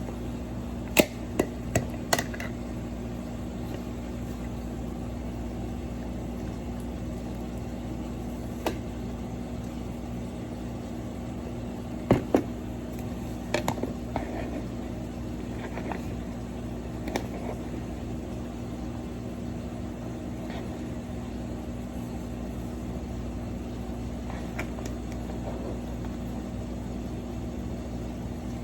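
Steady hum of a running kitchen appliance or fan, with a few sharp clicks and knocks, in a cluster early on and another about twelve to fourteen seconds in, from cookware or utensils being handled.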